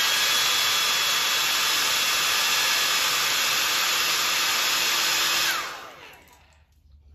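Handheld hair dryer blowing steadily on freshly airbrushed paint on a crankbait to dry it, a rushing airflow with a faint motor whine. About five and a half seconds in it is switched off and winds down, its whine falling away.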